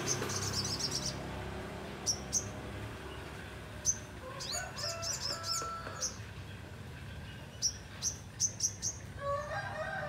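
Ruby-cheeked sunbird (sogon) calling in short, very high chirps, some single and some in quick rapid clusters. A lower call sounds in the background around the middle and again near the end, over a faint steady low hum.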